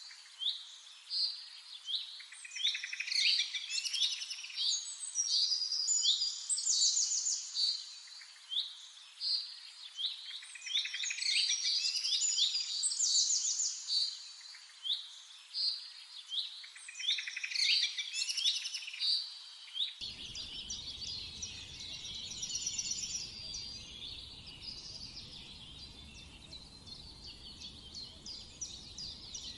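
Several songbirds chirping and singing in quick, repeated notes that sweep down in pitch. About two-thirds of the way through the sound changes abruptly to a fainter, busier chorus of birds over a steady low background noise.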